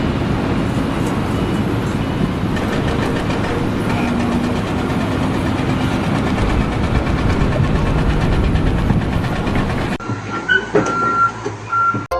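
Loud, steady rumble and clatter of heavy machinery. About ten seconds in it cuts to a quieter scene with a few high beeps of a reversing alarm.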